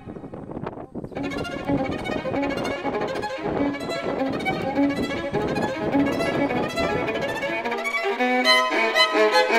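Violin music: a tune played in notes with a steady pulse. About eight seconds in, the low sounds beneath it cut out, leaving the violin clear.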